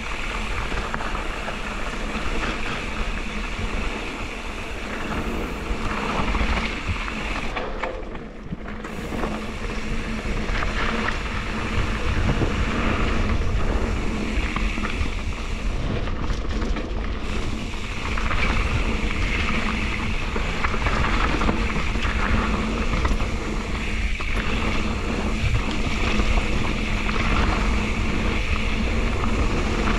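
Mountain bike rolling fast down a rocky dirt singletrack: tyres rumbling over dirt and stones, with wind noise on the action camera's microphone.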